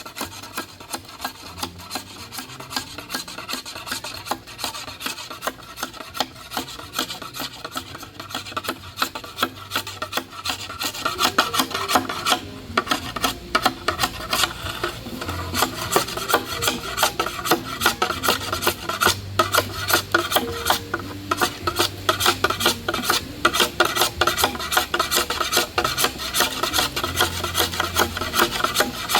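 Bolo knife scraping and shaving the joints of a bamboo pole to remove sharp splinters, in quick repeated strokes that grow louder about ten seconds in.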